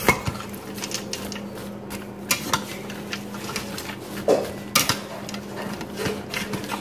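A metal spoon stirring and scraping through chunky vegetables, chicken and broth in a stainless steel Instant Pot inner pot, with scattered clinks and a few sharper knocks against the pot wall. A low steady hum runs underneath.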